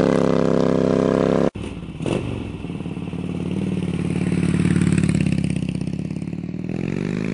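Harley-Davidson Dyna Super Glide's V-twin engine with Vance & Hines mufflers running as the bike pulls away. It cuts off abruptly about 1.5 s in. After a brief knock, a motorcycle engine runs on and rises in pitch near the end.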